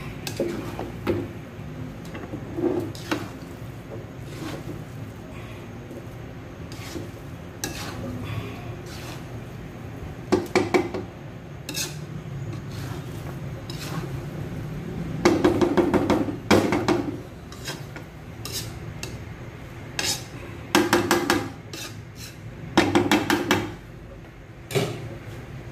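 A spatula scraping and clattering against a metal wok as sticky rice is stirred and turned, in several bursts with pauses between. The scraping works the rice loose from the bottom of the pan so it does not stick and scorch.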